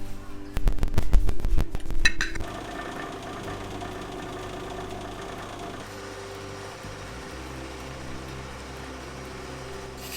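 A rapid clatter of knocks for about two seconds, then the steady hum of a brake lathe's motor spinning a brake rotor.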